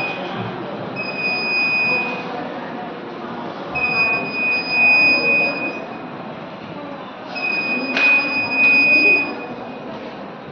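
Fire alarm sounder being tested, giving a high steady tone in long pulses, each about one and a half to two seconds long with similar gaps, three full pulses here, over low background murmur.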